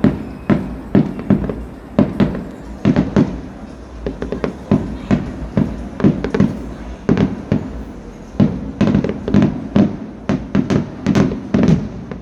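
Fireworks display going off: a rapid, irregular string of sharp bangs with echoing booms, several a second, coming thicker in the last few seconds.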